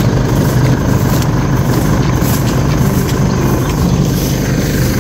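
An engine running steadily at idle, a constant low drone that does not rise or fall.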